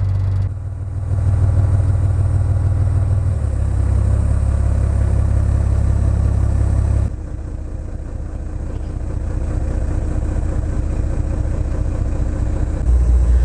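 Engine of a small boat under way, running with a steady low drone. The sound drops abruptly about seven seconds in, then builds back up.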